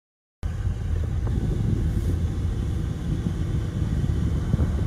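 Steady low rumble of a car driving on a wet road, heard from inside the cabin, starting about half a second in.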